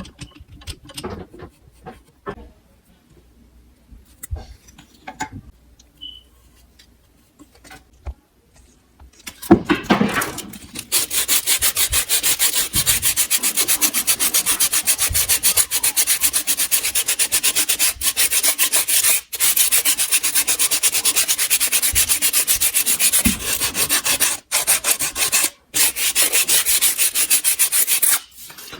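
A few scattered light knocks and clicks, then about nine seconds in a loud, fast, even rasping rubbing begins. It runs on with a couple of brief breaks and stops just before the end.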